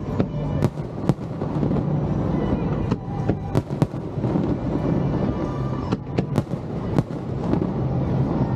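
Aerial fireworks bursting overhead: about ten sharp bangs at irregular intervals, a second or so apart, with show music playing underneath.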